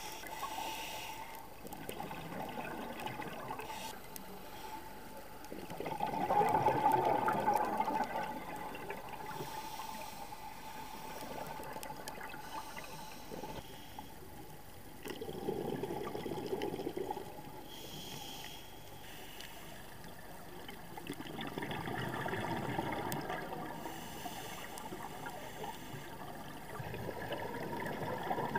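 A scuba diver breathing through a regulator, recorded underwater. Exhaled air bubbles out four times, every six to eight seconds, the loudest about six seconds in, with quieter stretches of inhaling between.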